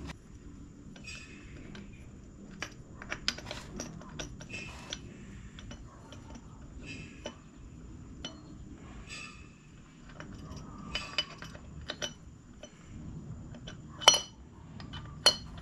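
Small metal carburetor parts, the dashpot cap and spring of a 1975 Honda GL1000 Gold Wing carburetor, clinking and tapping as they are handled and fitted by hand. The taps are scattered and light, with a couple of sharper clinks near the end.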